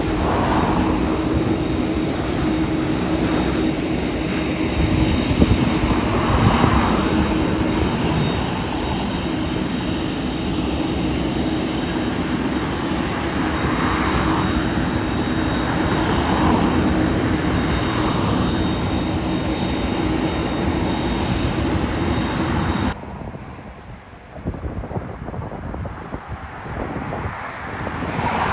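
Jet airliner engines running loud and steady, a rush of noise with a low hum and a high whine, cutting off abruptly about 23 seconds in, after which a quieter outdoor background remains.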